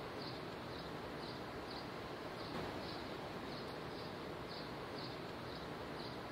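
Outdoor ambience: a steady background hiss with faint, high insect chirps repeating about twice a second.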